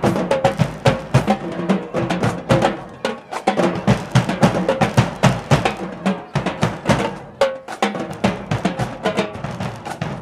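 A marching band drumline playing a fast, busy rhythm of snare drums and bass drums.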